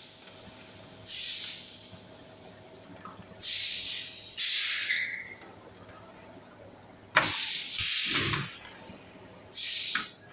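Plastic blow-moulding machine making broom handles, its compressed air hissing out in short bursts, about six in all, a second or two apart. A sharp clack comes about seven seconds in.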